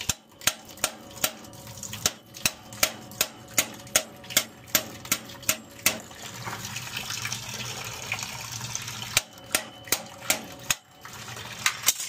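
Dirty boiler water pouring from a drain valve into a plastic bucket, draining the steam boiler down to test its low-water cutoff. Sharp clicks come about two or three a second through the first half and again near the end, louder than the pouring.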